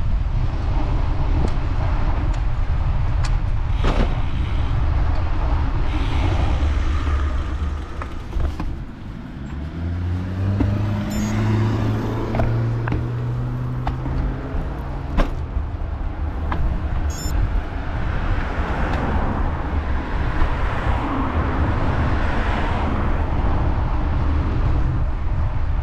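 Wind rumbling on the microphone of a road bike on the move, with motor traffic on the road. About ten seconds in the wind eases and a vehicle engine is heard speeding up, its pitch rising for several seconds, and later another vehicle passes with a rush of tyre noise.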